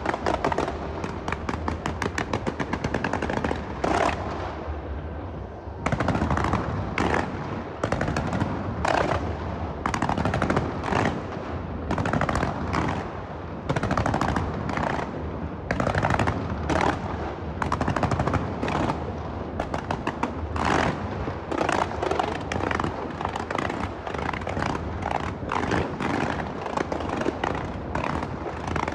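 Fireworks going off in a rapid, continuous barrage of bangs and crackles, briefly thinning out about five seconds in.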